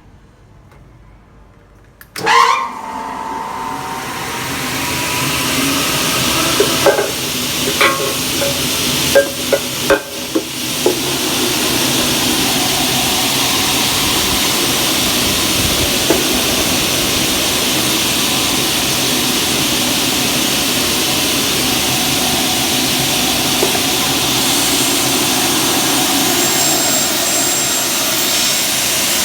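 Single-head aluminium cutting saw with a 500 mm blade and 3 kW motor switched on about two seconds in, then running steadily with a loud hissing whir. Several sharp clicks and knocks come about a third of the way through.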